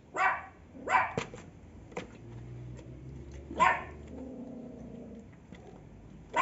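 A dog barking in a few short, sharp single barks with gaps between them, about four in all.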